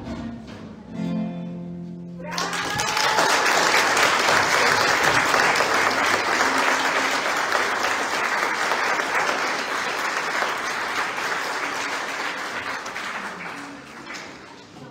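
An orchestra's final held chord cuts off about two seconds in, and the audience breaks at once into loud applause that slowly dies away near the end.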